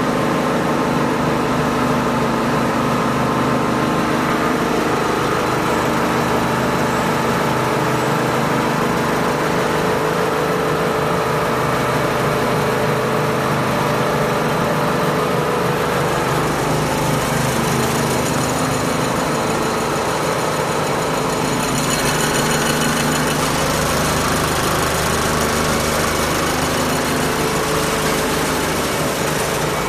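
Snack pellet extrusion line running: a loud, steady machine hum from its motors and fans, with several steady tones in it. A brighter hiss comes in about halfway through.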